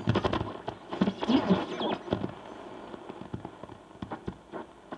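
Shortwave static from the loudspeaker of a 1937 Philips 461A valve radio as it is tuned between stations: irregular crackles and clicks, short whistling glides and snatches of broadcast sound.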